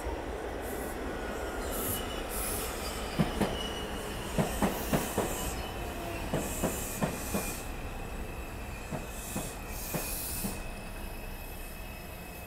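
New York City Subway R142 train running into the station: a steady rumble with a thin, high wheel squeal over it. Sharp clicks of the wheels over rail joints come in quick pairs and fours from about three seconds in, thinning out after about ten seconds.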